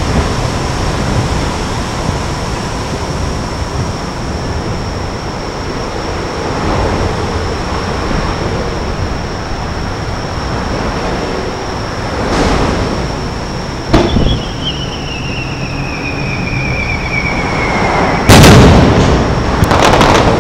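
Aerial fireworks: a sharp bang about two-thirds of the way in, followed by a whistle falling in pitch for about four seconds, then a loud boom, the loudest sound, and a couple more bangs near the end, over a steady background rumble.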